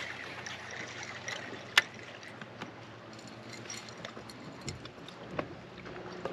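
Lake water lapping against a bass boat's hull, with scattered small clicks and one sharp click about two seconds in.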